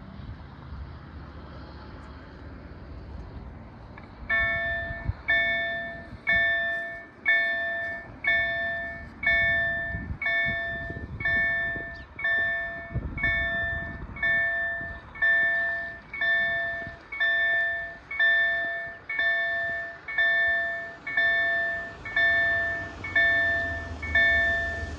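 KLD-4103 railway level-crossing bell starting to ring about four seconds in, striking steadily about once a second, each stroke ringing out and fading before the next: the crossing's warning of an approaching train. A low rumble is heard before the bell begins.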